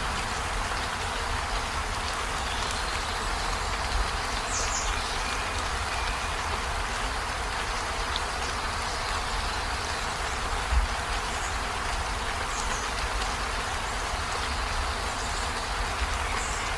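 Steady rain on a river, an even hiss with a low rumble beneath it. A few faint, brief high chirps come through on top.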